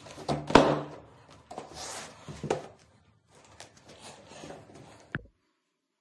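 Heavy shrink-wrapped boxes being pushed and set into place on a rubber-cork underlay: scuffing and handling noise with a sharp knock about half a second in and a second one about two and a half seconds in. The sound cuts off suddenly about five seconds in.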